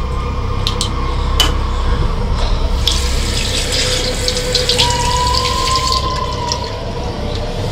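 Tap water running into a bathroom sink, heaviest in the middle seconds, over a steady low drone with held tones.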